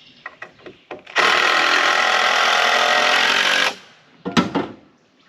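Power driver running for about two and a half seconds, driving a screw into a wooden roof support board; it starts and stops abruptly. A short knock follows about a second later.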